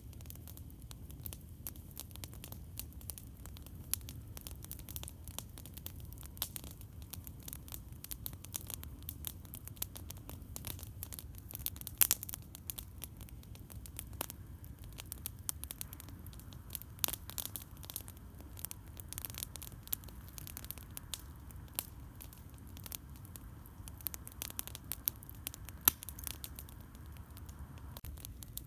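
Campfire crackling: wood snapping in irregular sharp pops, with a couple of louder pops about twelve seconds in and again near the end, over a steady low rumble.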